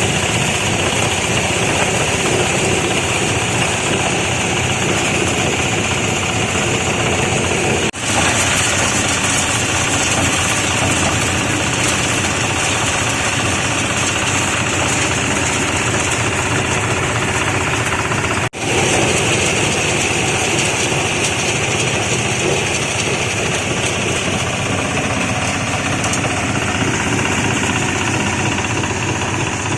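Market-waste sorting machine, separating plastic from vegetable waste, running steadily with a loud, dense mechanical clatter. The sound drops out for an instant twice.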